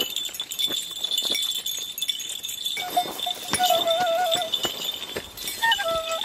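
Goat bells worn by walkers clinking and clanking irregularly, with short phrases on a small pipe: held notes with quick trills about three seconds in and again near the end. A steady high buzz runs underneath.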